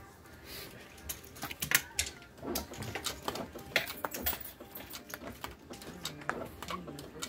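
Irregular sharp clicks and taps of playing cards and casino chips being handled on a felt table, with cards being dealt out near the end.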